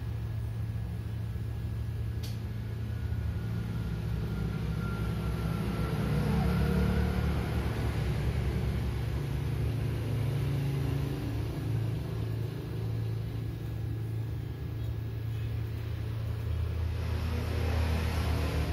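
Steady low background rumble, with a faint whine drifting in pitch about five to seven seconds in.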